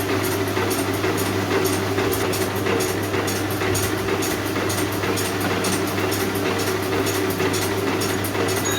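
A blacksmith's forge running steadily, with a constant roar and hum of air and fire and irregular faint crackling over it.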